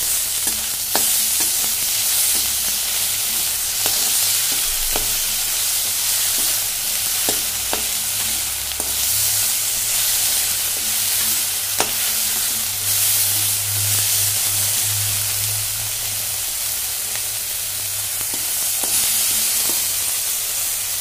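Chopped onion and tomato sizzling in hot mustard oil in a metal wok, stirred with a perforated metal spatula that scrapes and now and then clicks sharply against the pan.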